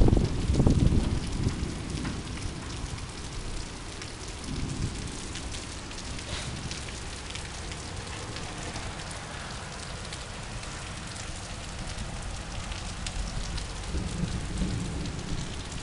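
Heavy rain falling and pattering on surfaces, a steady hiss full of fine drop ticks. A loud low rumble fades away over the first couple of seconds.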